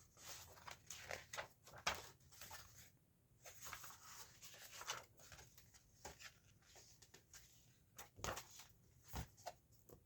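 Faint paper rustling with scattered soft taps and ticks: pages of a box-set booklet being turned and handled.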